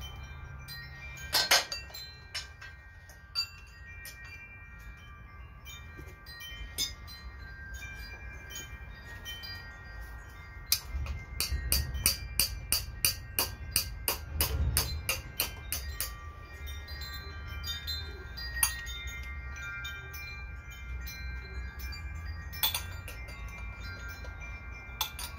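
Quarter-inch ratchet clicking in quick runs as bolts are worked loose on the front of a Cummins 6BT diesel engine, the busiest run about halfway through at roughly five clicks a second. Chime-like ringing tones of several pitches sound throughout, over a low steady rumble.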